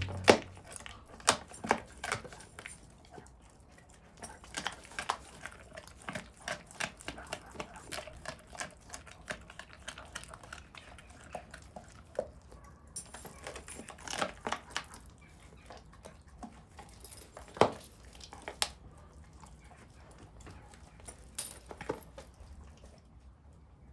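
Belgian Malinois chewing a raw beef trachea: irregular bouts of wet crunching and sharp cracks of cartilage, mixed with the clinking of its metal chain collar, with short pauses between bouts and a few louder cracks.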